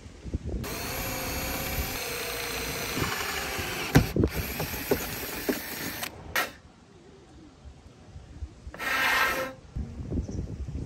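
Power drill running for about five seconds with some knocks, then after a pause a second short burst of about a second.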